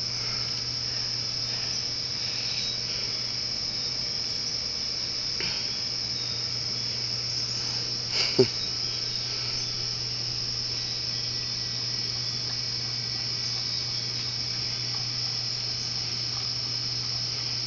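Steady, high-pitched chorus of insects, with a low steady hum underneath. A brief, sharper sound cuts through about eight seconds in.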